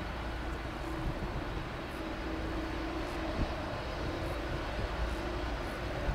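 Delta Boeing 767-300ER's twin jet engines at taxi power as the airliner rolls past: a steady rush with a constant droning tone and low rumble.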